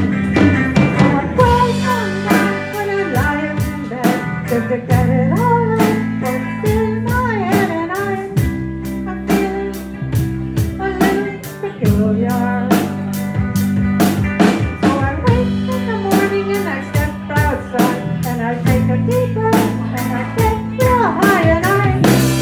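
Live band playing a blues-rock number: a drum kit keeping a steady beat under guitar and bass, with a lead line of bending notes.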